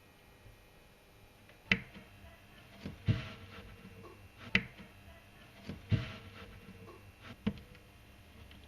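A series of five sharp knocks, about a second and a half apart, some with a duller thud alongside.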